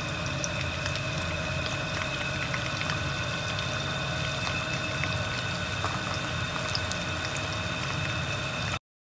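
Whole chicken deep-frying in a wok of hot oil: a steady sizzle with scattered small pops and crackles, over a faint steady whine. It cuts off abruptly near the end.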